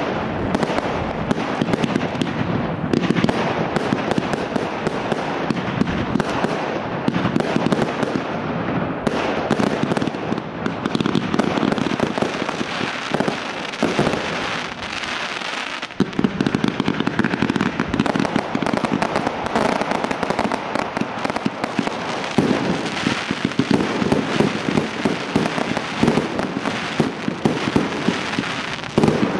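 Professional fireworks display firing a rapid, continuous barrage of launches, bursts and crackle. It eases slightly about halfway through, then picks up again at full density.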